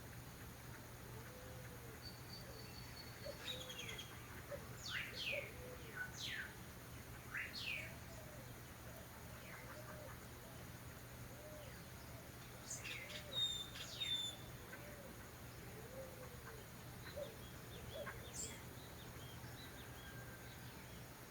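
Orioles (calandrias) calling: a scatter of high, quick whistled notes that sweep sharply up or down in pitch, busiest and loudest in the middle.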